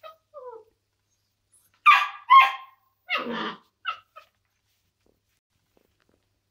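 Smooth collie puppy barking: two faint whines, then two loud sharp barks about two seconds in, a longer, lower bark, and two short yips. Wary puppy barking at an unfamiliar object.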